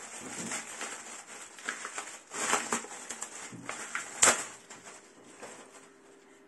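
Thin plastic packaging bag crinkling and rustling as it is worked off a shovel's plastic D-handle, in irregular crackling handfuls, with one sharp click about four seconds in.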